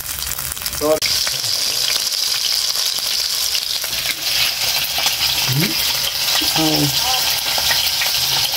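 Small flour-coated fish deep-frying in hot oil in a pan: a steady, vigorous sizzle that grows louder and brighter about a second in.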